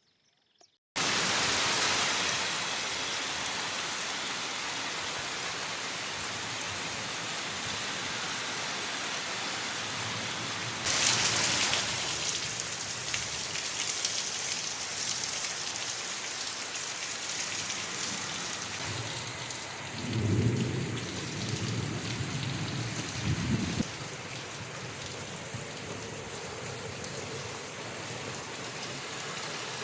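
Heavy rain falling in a thunderstorm, starting abruptly about a second in as a steady hiss that swells louder around eleven seconds. Thunder rumbles low several times roughly twenty seconds in.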